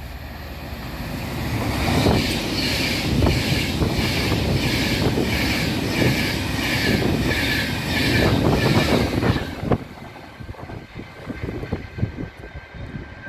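Class 390 Pendolino electric train passing through the station without stopping: a rising approach, then a loud rush of wheels and air that pulses about twice a second as each coach goes by. It cuts off suddenly as the last coach clears, leaving wind buffeting the microphone.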